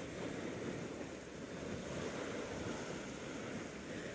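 Steady wash of the sea with wind buffeting the microphone, a constant low rumbling noise with no distinct events.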